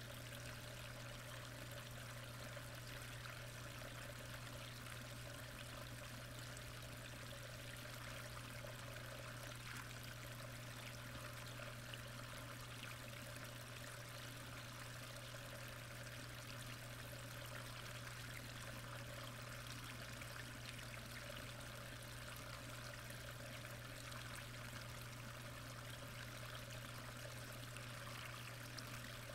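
Faint, steady rush of moving pond water heard underwater, with a constant low hum beneath it.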